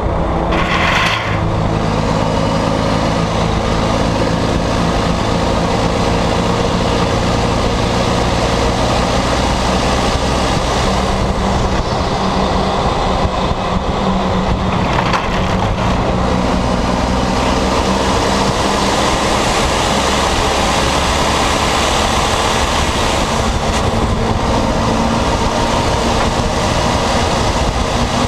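Volvo FMX 460's 13-litre diesel engine running under way through a broken, straight-through exhaust, loud and steady, its note changing pitch several times. A short hiss about a second in.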